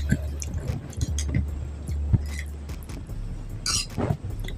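Eating sounds: a metal spoon and fork clinking and scraping against a glass plate, with chewing, as scattered short clicks, the loudest a little before the end. A steady low hum runs underneath.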